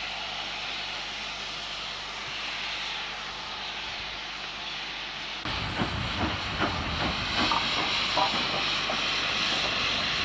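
Steady hiss of escaping steam from a standing LMS Black Five steam locomotive. About halfway through, a low, irregular rumble with scattered knocks joins the hiss, like wind buffeting the microphone.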